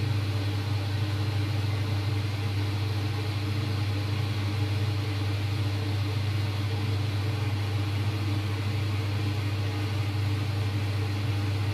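A steady low machine hum with a layer of hiss, even in pitch and level throughout.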